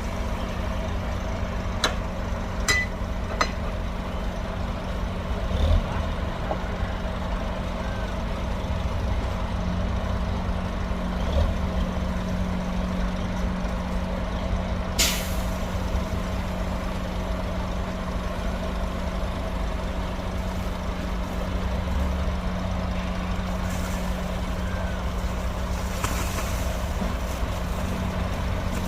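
Heavy diesel earthmoving machinery running steadily at a site where a bulldozer and dump trucks work, with a few sharp metallic clacks in the first few seconds and one short hiss about halfway through.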